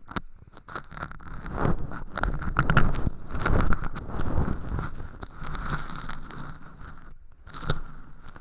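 An ear pick scraping and rustling thin, crispy fake earwax close inside a binaural microphone's ear, giving irregular scratchy crackles that grow busier about two seconds in and ease briefly near the end.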